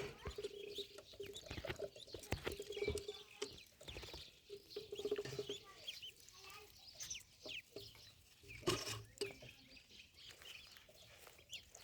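Ducklings peeping: many short, high, rising chirps, with scattered clicks and knocks.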